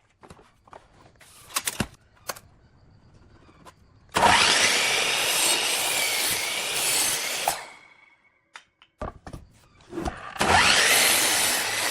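A power tool cutting or machining wood in two passes, the first about three and a half seconds long and the second starting near the end, with light knocks and clicks of handling between them.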